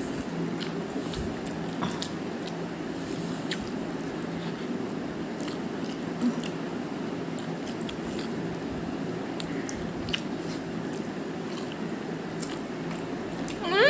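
Noodles being eaten straight off plates without hands: soft wet slurping, mouthing and chewing with small scattered clicks over a steady low hiss. Right at the end a loud, wavering vocal whine begins.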